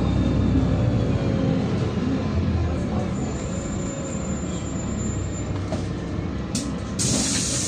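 Cabin noise of a LiAZ-5292.67 city bus running on compressed natural gas: a steady low engine and road rumble as it moves in traffic. A faint thin whistle comes in for a couple of seconds midway.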